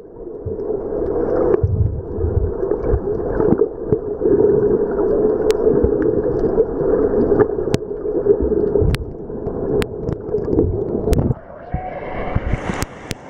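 Tour boat under way on the water: a steady motor-and-water rumble with wind on the microphone, changing to a brighter, hissier sound about eleven seconds in.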